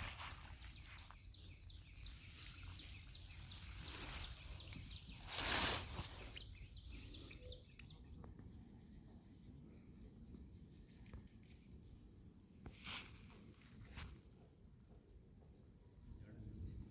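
Insects chirping: short, high chirps repeating a little more than once a second over a steady high whine, starting about halfway through. A brief, loud burst of noise about five and a half seconds in is the loudest thing.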